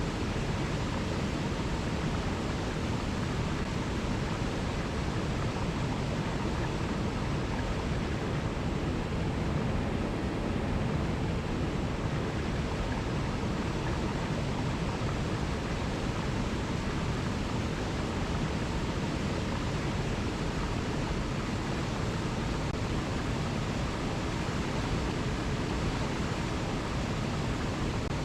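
Alpine mountain river rushing over small cascades: a steady, even roar of flowing water.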